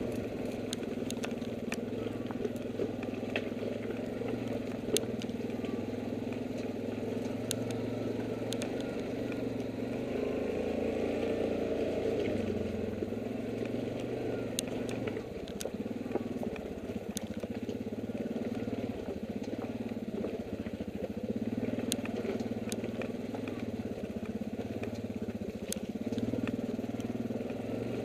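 ATV engine running at low speed on a steady, slightly wavering note, with scattered sharp clicks and knocks as the machine rolls over loose rock.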